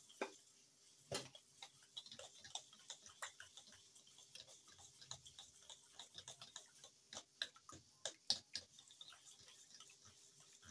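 Small wire whisk stirring a yogurt-and-cream mixture in a stainless steel bowl: faint, irregular clicks and taps of the wires against the metal, with a few louder taps.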